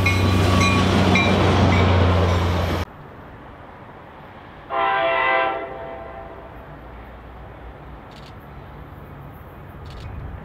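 A diesel passenger locomotive passes close with a heavy, low engine rumble that cuts off suddenly. About two seconds later, a distant approaching diesel sounds its air horn once, a blast about a second long, over quiet background noise.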